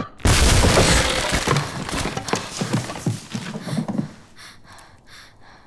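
A sudden loud burst of crashing, thudding noise that fades away over about four seconds, followed by quick breaths repeating about twice a second.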